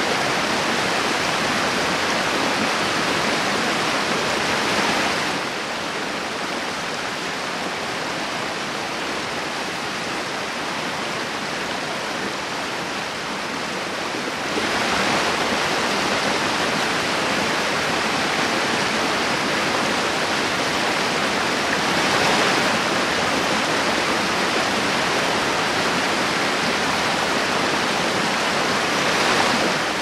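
River rapids rushing over boulders: a continuous hiss of white water. It turns somewhat quieter about five seconds in and comes back up about ten seconds later.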